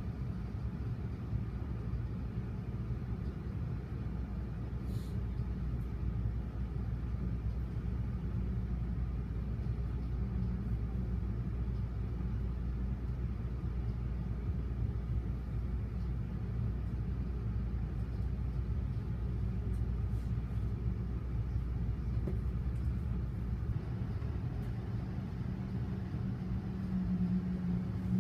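Low, steady rumble of a diesel-hauled MBTA commuter train, heard from inside a passenger coach as the train sits at a station and then pulls away. A strong low hum comes in during the last couple of seconds.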